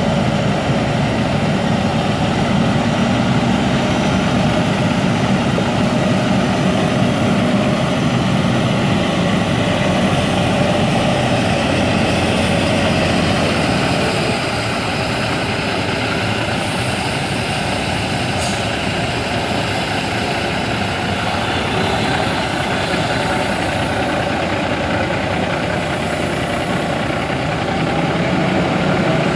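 The 2006 Volvo VNL semi tractor's Cummins ISX 14.9-litre inline-six turbo diesel runs steadily as the truck drives and turns. It gets a little quieter about halfway through, then louder again near the end as the truck comes back toward the listener.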